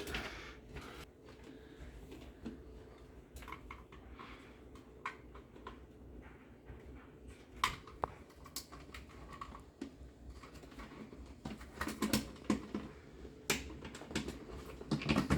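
Faint scattered clicks and handling noises of hands working a plastic hardwired smoke and carbon monoxide alarm and its wiring, with a few sharper clicks in the last few seconds.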